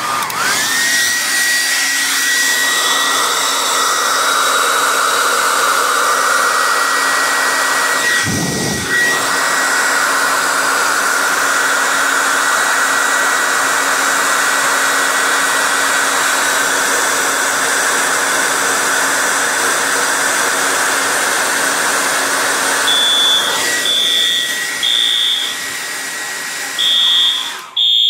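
Hair dryer blowing steadily on a fixed-temperature heat detector, with a thin steady whistle in its noise. Near the end, the heat detector trips and a Wheelock horn/strobe sounds a pulsed high horn tone: three short blasts, a pause, then more, the temporal fire-alarm pattern.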